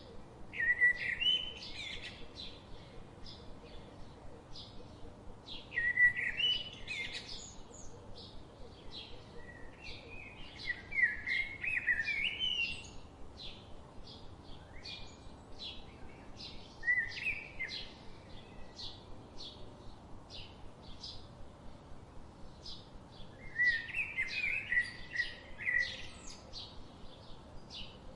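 Small songbirds singing and chirping: a short warbling song phrase comes about every five to six seconds, over a steady patter of quick high chirps from other birds.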